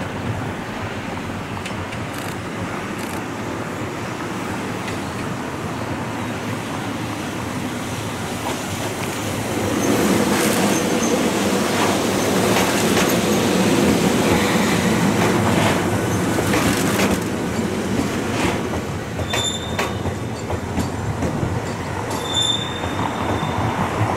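Ohmi Railway 800-series (809F) two-car electric train approaching and running past, its wheels clacking over the rail joints. It is loudest for several seconds about ten seconds in as the cars go by, then fades, with a couple of short high squeals near the end.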